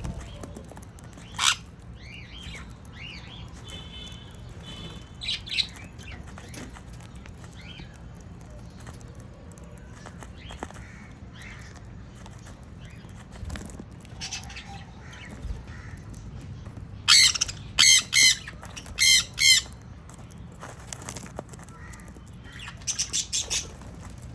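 Sun conures calling: scattered short chirps and a brief steady whistle, then a run of five loud, harsh screeches about two-thirds of the way in and a quick string of shorter squawks near the end.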